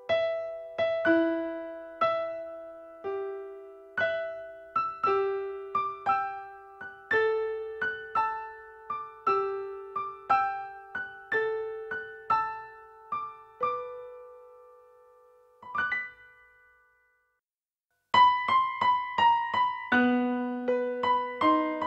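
Lullaby arrangement of a cumbia song played on a bell-like electric piano, one soft melody note at a time, each note ringing and fading. The tune slows and stops about 16 seconds in, and after a short silence a new, quicker tune begins.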